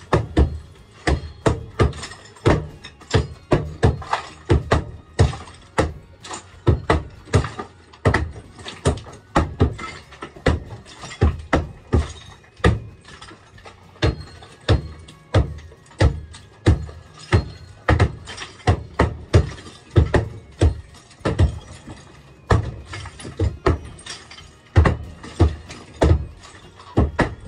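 Hammer blows breaking out an old plaster and tile shower wall: repeated hard knocks, irregular but about two a second, with no let-up.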